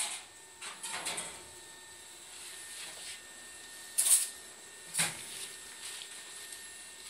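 Metal kitchenware clinking and knocking in a commercial kitchen: a few sharp clatters, the loudest about four seconds in and another a second later, over a faint steady hum.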